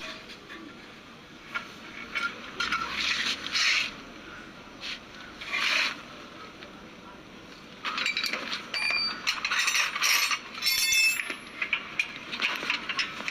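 Metal hand tools clinking and scraping against car steering and suspension parts in short, irregular bouts, with a run of ringing metallic clinks past the middle.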